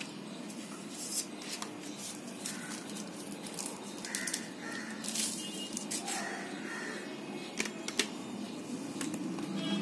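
Paper inserts and a thin plastic sleeve rustling and crinkling as a smartphone box is unpacked by hand, with scattered light clicks and taps.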